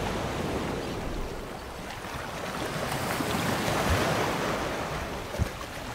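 Sea waves washing: a steady rush of water that swells to its loudest about four seconds in and then fades.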